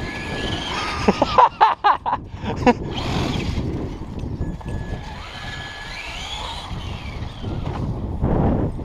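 Traxxas Slash 2WD RC truck's brushed electric motor whining up and down in pitch as it is driven, with a cluster of loud, sharp sounds between about one and three seconds in.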